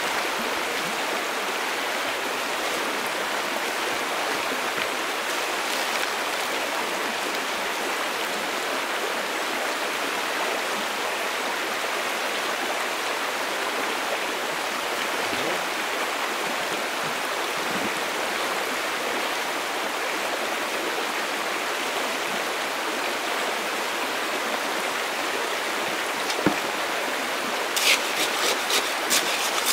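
River water flowing steadily. Near the end a quick run of sharp rattling clicks starts up, about three a second.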